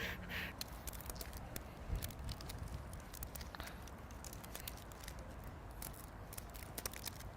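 Rubber bands being stretched and snapped one after another onto a watermelon's rind, heard as faint, scattered snaps and ticks, with a slightly louder knock about two seconds in. A low wind rumble runs underneath.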